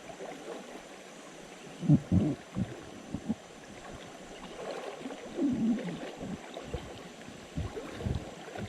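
Flowing river water gurgling, with irregular splashes and dull low knocks as people move in the water.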